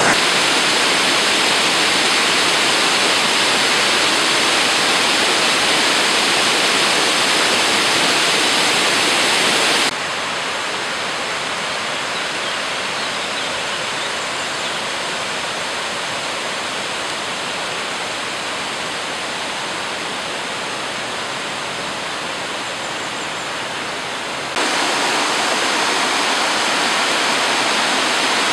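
Waterfalls and streams cascading over karst rock: a steady rush of water. It turns quieter about a third of the way in and grows louder again near the end.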